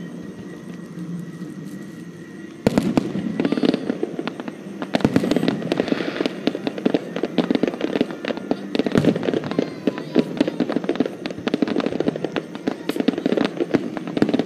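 Fireworks going off: a sharp bang about two and a half seconds in, then a dense, rapid run of crackling pops with louder bangs mixed in.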